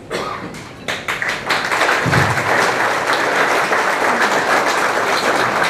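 A room full of people applauding: a few scattered claps, then dense, steady applause from about a second in.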